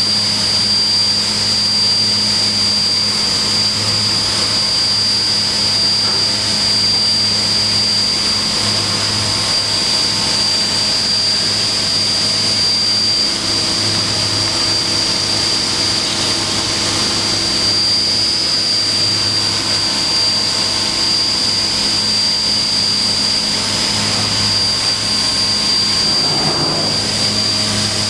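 Haas VF-7/50 CNC vertical machining center running under power: a steady mechanical hum with a constant high whine.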